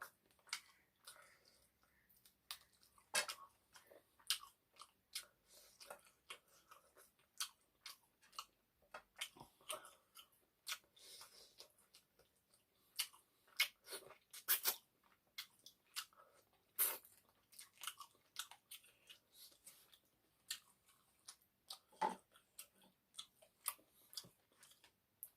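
A person chewing a mouthful of egg noodles and chicken curry close to the microphone, with many short irregular wet clicks and smacks.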